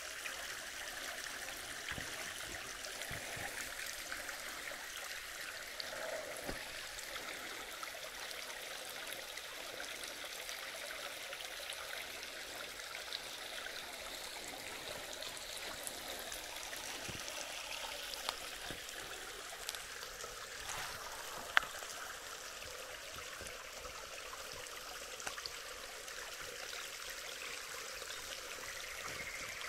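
Creek water running over rocks, a steady rushing trickle, with a few faint ticks and one sharp click about two-thirds of the way through.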